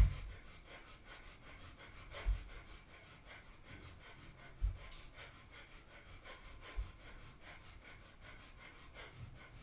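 Breath of fire: quick, even, forceful exhalations through the nose. A dull low thump comes about every two seconds.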